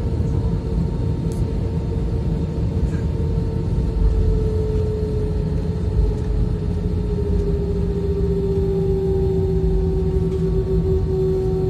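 Airliner cabin noise after take-off: a steady low rumble with a humming whine that slowly drops in pitch, which the uploader traced to the landing gear's hydraulic system as the gear retracts.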